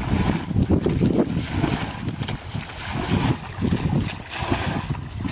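Muddy water splashing and pouring as a plastic bucket scoops it up and throws it out of a shallow ditch, again and again, with wind rumbling on the microphone.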